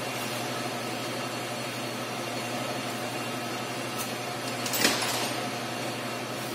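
Steady machine hum in the workshop, with one brief clatter about five seconds in.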